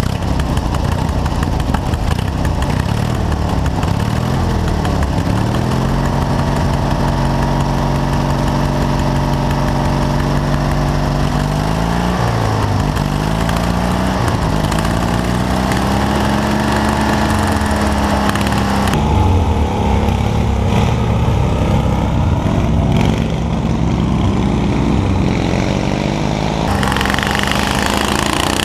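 Racing lawn tractor engine running and revving, its pitch falling and rising several times with throttle and gear changes. The sound changes abruptly twice in the second half.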